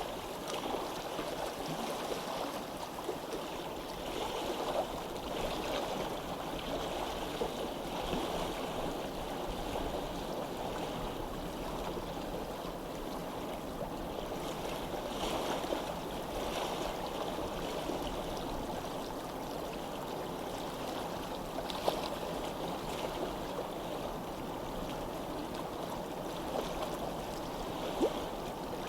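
A stream running steadily, an even babbling of flowing water, with two brief sharp ticks, one about two-thirds of the way through and one near the end.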